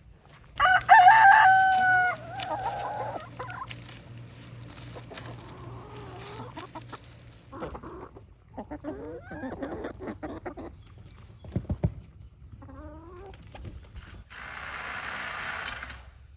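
A rooster crowing once, loud, starting about a second in, followed by quieter clucking and chicken calls. Near the end there is a steady hiss lasting about a second and a half.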